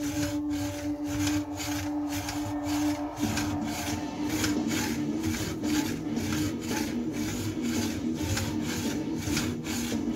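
Bullworker exerciser being compressed and released over and over during crunches, its spring-loaded sliding tubes making a rhythmic rasping rub about two to three times a second, over a steady low hum.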